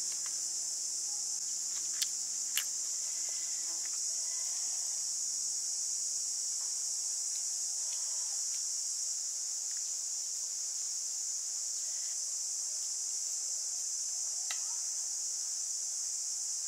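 Insects calling in a steady, high-pitched chorus, with two sharp clicks about two seconds in.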